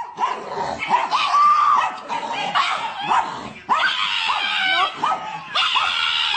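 A dog yipping and whining in a rapid string of short calls, each bending up and down in pitch.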